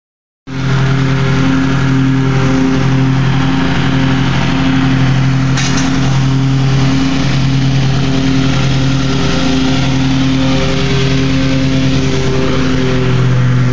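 Small petrol engine of lawn-care equipment running steadily at constant speed, a low hum with a slight regular throb. A faint click about five and a half seconds in.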